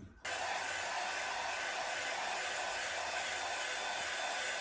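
Handheld hair dryer switched on a moment in and blowing steadily, with a faint whine from its motor. It is in use on the freshly applied wig glue.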